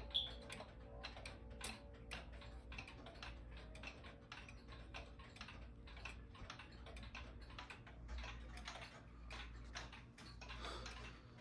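Mechanical clock ticking, a quick run of light ticks, with the last ring of a chime rod dying away at the start.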